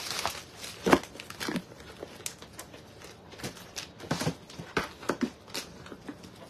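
Paper crinkling and rustling in short, irregular bursts as it is handled, with one louder bump about a second in.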